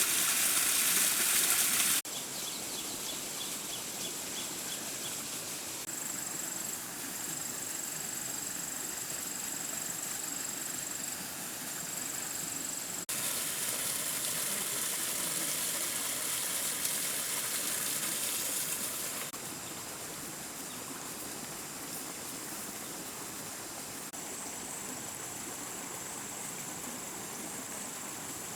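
Rainforest ambience: a steady hiss of water with a thin, high insect drone over it. The sound changes abruptly about 2, 13 and 19 seconds in.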